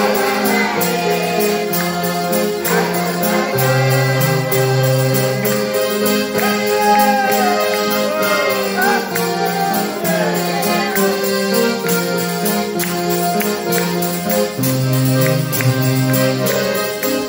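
Live praise song played on a Hohner piano accordion and an acoustic guitar over a steady bass line, with a man singing over the instruments in parts.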